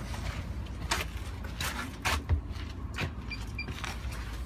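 Footsteps walking from the pavement onto a city bus, about one step every 0.7 seconds, over a steady low rumble. Two short high beeps a little past three seconds in.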